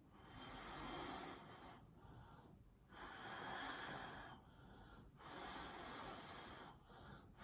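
A person blowing out breath in three long puffs with short pauses between, pushing wet pour paint across the canvas.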